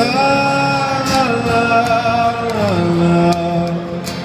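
Live acoustic rock song: a male voice sings a long wordless melody, sliding up into a held note and stepping down to lower held notes, over strummed acoustic guitar.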